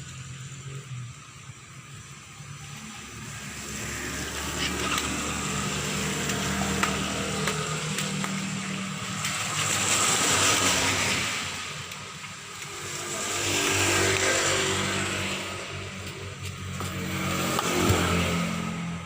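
Motor vehicles going by: a low engine hum under a broad hiss that swells and fades twice, about four seconds apart, as cars pass.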